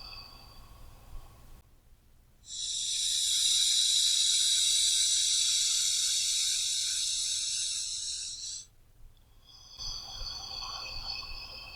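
A person breathing deeply: a quieter breath fades out at the start, then one long, loud breath lasting about six seconds, then a quieter breath begins near the end.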